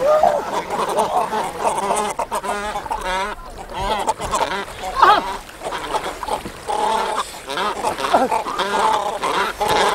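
Water splashing around a man swimming among cormorants, with many short calls that waver quickly in pitch over it.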